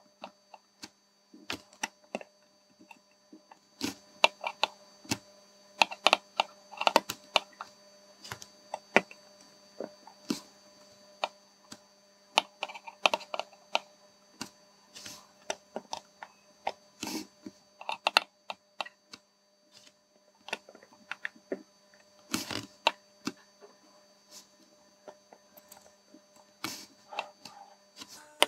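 Irregular light clicks and taps of fine metal tweezers and a soldering iron tip on a small circuit board and the bench while tiny surface-mount LEDs are hand-soldered, over a faint steady electrical hum.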